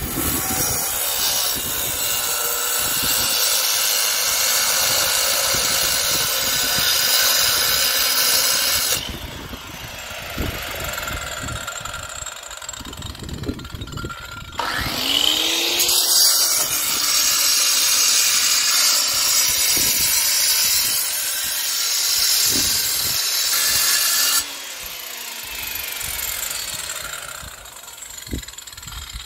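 Handheld electric power tool cutting into old concrete foundation in a pit: two long loud runs of about ten seconds each, with quieter stretches between.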